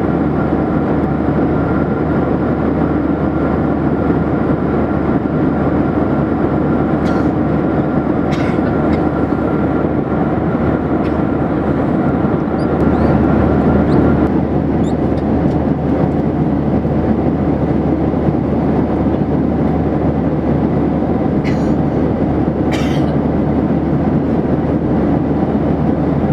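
Steady cabin noise of a Boeing 737-800 airliner in flight: a constant low rush of engines and airflow. A faint high steady tone stops about halfway through, and a few faint brief clicks sound along the way.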